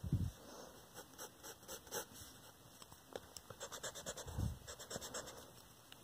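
Pencil scratching on paper in quick, irregular sketching strokes. There is a low muffled thump at the start and another about four and a half seconds in.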